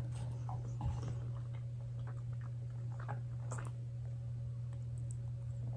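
Faint wet chewing and small mouth clicks from a person eating instant ramen noodles, over a steady low hum.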